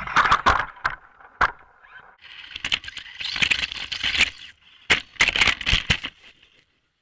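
Short, irregular bursts of rattling and clicking with gaps between them, dying away about six seconds in.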